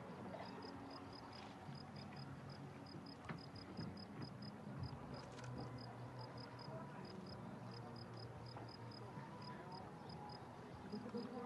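Faint, regular high-pitched chirps, about four a second with the odd gap, over a low steady hum.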